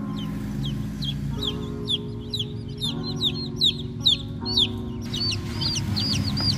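Young chicks peeping over and over, short high calls that fall in pitch, about three a second, over background music of held chords that change every second or so.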